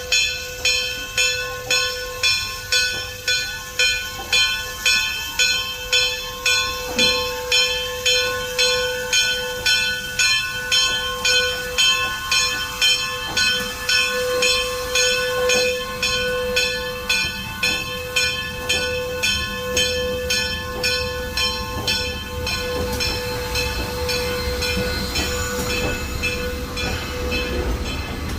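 Steam locomotive's bell ringing in a steady rhythm, about one and a half strokes a second, as the engine approaches. Near the end the strokes grow fainter under the rising low rumble of the train running by.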